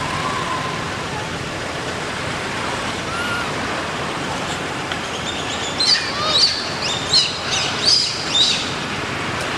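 Baby long-tailed macaque crying: a run of about six short, shrill squeals packed into the last few seconds, over a steady background hiss.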